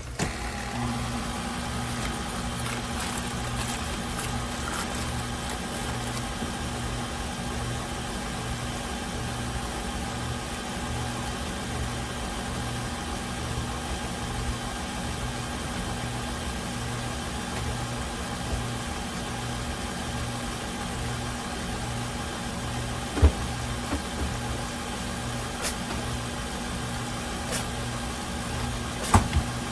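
KitchenAid Artisan stand mixer running on low speed, its flat beater turning through batter in the steel bowl: a steady motor hum with a low throb that pulses evenly about once a second. A few sharp clicks near the end.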